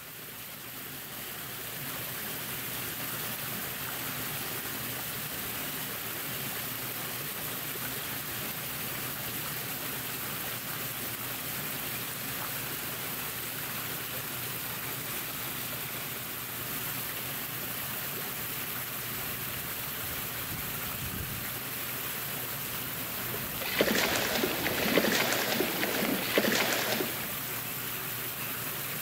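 Steady rush of running water. About 24 seconds in, a louder, busier burst of sound lasts about three seconds, then the even rush goes on.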